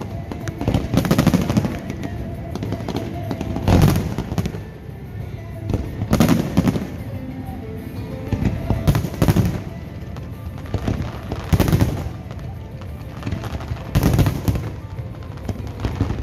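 Aerial fireworks shells bursting with loud bangs, one about every two seconds, with music playing underneath.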